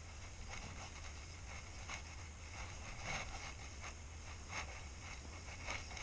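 Skis sliding and scraping over snow, with a soft scrape every second or so as the edges turn, over a steady low rumble of wind on the microphone.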